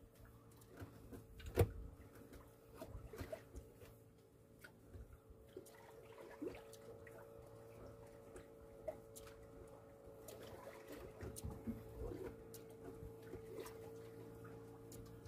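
Small boat at sea: a faint steady motor hum with water splashing and dripping, and scattered clicks and knocks, one sharp knock about one and a half seconds in.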